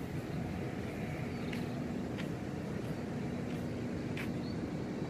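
Footsteps on stone paving at walking pace, one every two-thirds of a second or so, over a steady outdoor background rumble.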